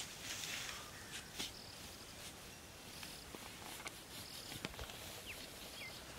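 Faint dry grass rustling and crackling as a pile of cut grass is pulled apart by hand and stick, with scattered light clicks and a few short high chirps.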